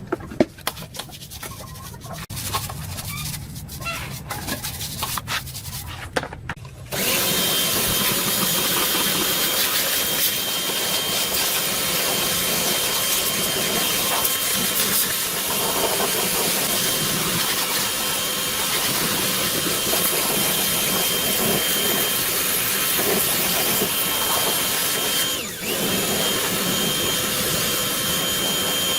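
Handling clicks and rubbing, then a power tool switches on about seven seconds in and runs steadily with a high whine. Near the end it briefly dips in pitch and level, then comes back up to speed.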